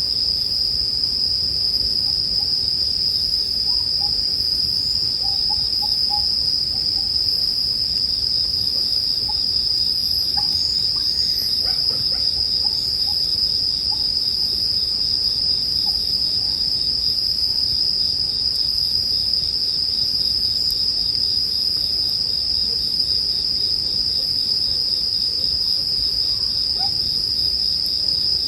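Japanese bell crickets (suzumushi) singing in a steady, unbroken high-pitched chorus, with a campfire crackling softly underneath.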